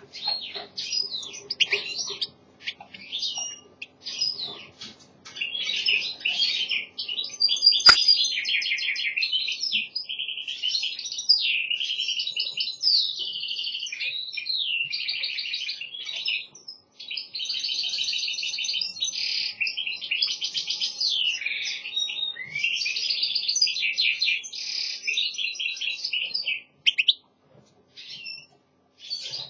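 European goldfinch singing a long, nearly unbroken twittering song of quick chirps and buzzy trills, pausing briefly near the end. A single sharp click about eight seconds in.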